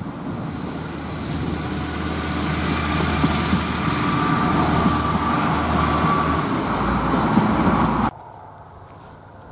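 Queensland Railways 2000-class diesel railmotors passing close by: engine hum and wheel-on-rail rumble growing louder, with a whine and a few sharp clicks from the running gear. The sound ends abruptly about eight seconds in.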